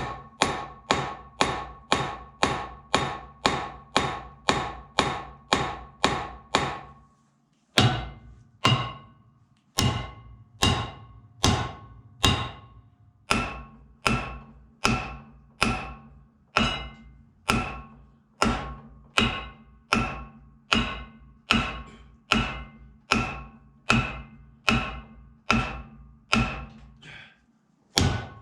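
Hammer striking a Jaguar MKII rear hub that is held under tension by a hub puller, in steady blows of about two a second with a short break about eight seconds in, each blow ringing metallically. The hub is being shocked to free it from the half shaft, and it does not shift.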